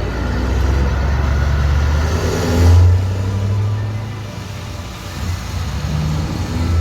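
Heavy truck's diesel engine pulling away, its note swelling to a loud surge about two and a half seconds in, then easing off.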